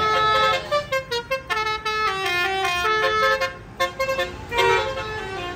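Tour bus's basuri musical air horn playing a telolet tune: a run of stepped horn notes, some short and quick. There is a brief break about three and a half seconds in, then one more note.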